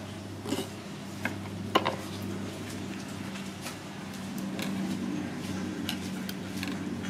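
Chopped aromatics being gathered by hand on a wooden chopping block and scraped off a knife blade into a granite mortar: a few light knocks and clicks, the sharpest just under two seconds in, over a steady low hum.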